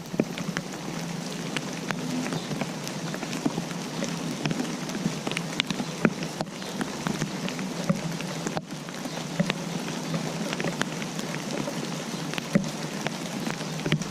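Rain falling steadily: a dense patter of drops with many sharp individual drop ticks on a surface, a few noticeably louder than the rest.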